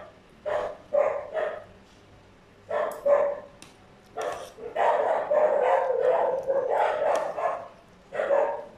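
Dogs barking: a few short barks in the first three seconds, then a longer unbroken stretch of barking from about the middle, and one more bark near the end.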